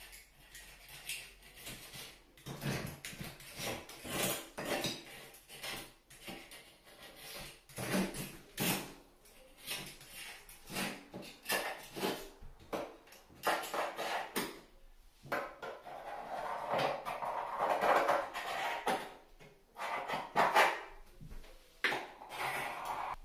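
Knife blade scraping and cutting old caulk out of the joint between the bathtub and the tile wall, in quick irregular strokes, with a longer run of steady scraping about two thirds of the way through.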